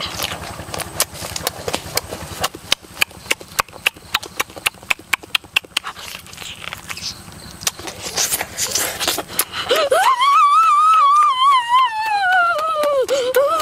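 Wet chewing and lip-smacking of a person eating roasted chicken with the hands, a rapid run of sharp clicks. About ten seconds in, a long high wavering vocal sound rises, holds and falls away.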